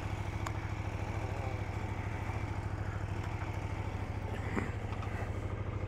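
KTM motorcycle engine idling steadily, a low even hum with a fast pulse, with a few light clicks on top.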